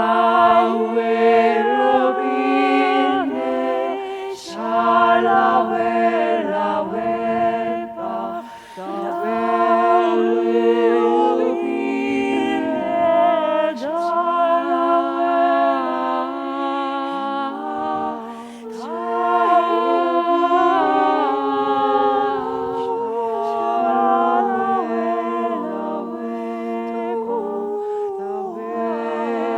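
A small a cappella vocal ensemble singing layered harmonies, with long held notes shifting against each other over a steady low sustained drone.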